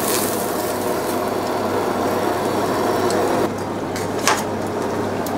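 Steady drone of restaurant-kitchen ventilation with a constant low hum, and a single sharp click about four seconds in.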